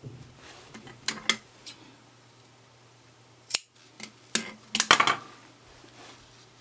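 Handwork with a small piece of stiff fabric: a few sharp, crisp clicks and snaps, two about a second in, one near the middle, and a quick cluster about four to five seconds in.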